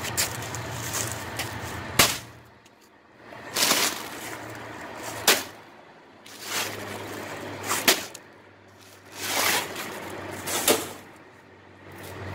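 A bag of ice being handled and emptied into a plastic cooler: sharp clatters and plastic rustling in short bursts about every second and a half, some lasting about half a second, over a steady low hum.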